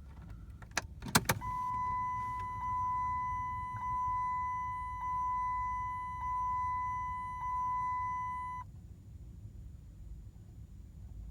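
A few sharp clicks about a second in, then a 2006 Chrysler 300C SRT8's electronic warning chime sounding six times, about once a second, before it stops. No starter motor or engine sound follows: the car won't crank when the key is turned.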